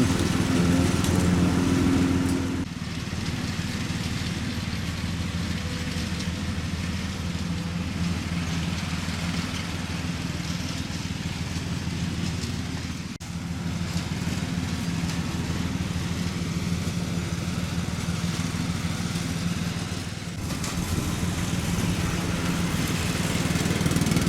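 Lawn mower engine running steadily, with a brief dropout about halfway through.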